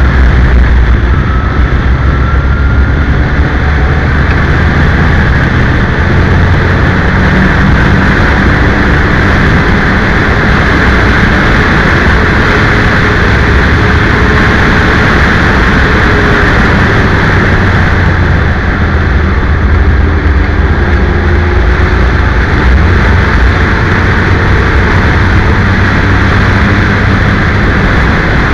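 Open-cockpit race car lapping a circuit at speed, its engine running under load. Heavy wind buffeting on the onboard microphone all but buries the engine note.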